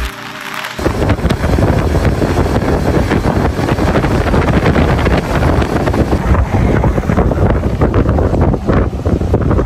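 Heavy wind buffeting the microphone of a camera on a moving motorcycle, a loud uneven rush. Music cuts off about a second in.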